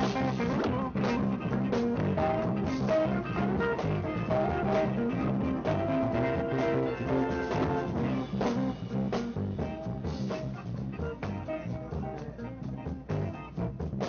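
A live band playing an upbeat number, with electric guitar over a steady beat.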